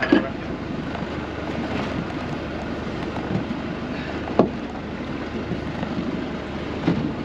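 Steady wind and water noise aboard a small fishing boat, broken by three sharp knocks: one at the start, the loudest a little past halfway, and one near the end.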